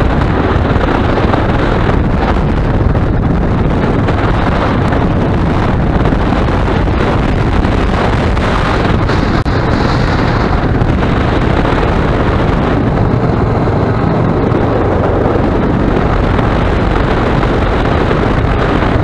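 Heavy, steady wind noise on the microphone of a camera riding on a moving motorcycle, with the motorcycle's engine running underneath at a constant pace.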